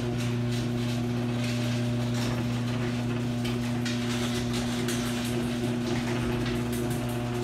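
Steady mechanical hum with a low drone and overtones, under a layer of fast light ticking; it cuts off suddenly near the end.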